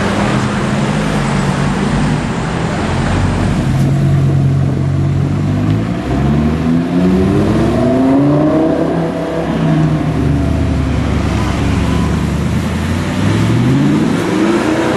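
Audi R8 engines: a steady drone for the first few seconds, then engine pitch rising in sweeps as a car accelerates hard through the gears about six seconds in, and again near the end as the green R8 V8 pulls away.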